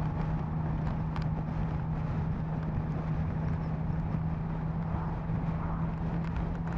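Yamaha MT-09 SP's inline three-cylinder engine running at a steady cruising speed, one constant engine note with no revving, under wind rushing over the microphone.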